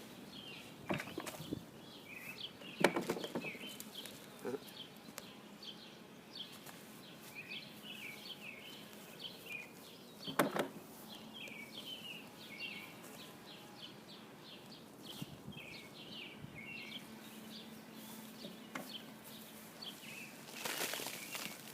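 Small birds chirping over and over in the background, with a few sharp knocks and rustles from hands digging through potting soil and picking out potatoes; the loudest knock comes about three seconds in, and a burst of rustling comes near the end.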